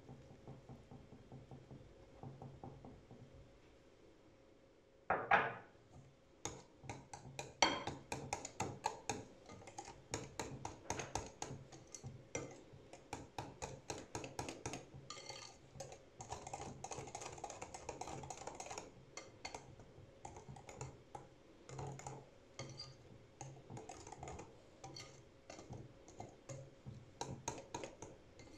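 Rapid, irregular clicking of a utensil against a bowl as cake batter is mixed, with a louder knock about five seconds in and another near eight seconds.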